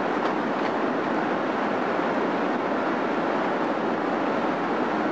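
Steady road noise inside a vehicle cruising at highway speed: an even rush of tyres, engine and wind that holds level without change.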